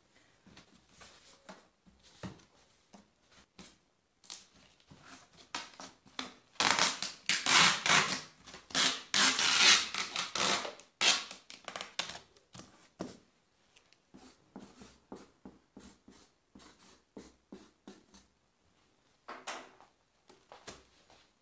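Packing tape being pulled off the roll and pressed down along a cardboard box, a run of loud tearing strokes in the middle, with lighter rustles and knocks of handling the box before and after.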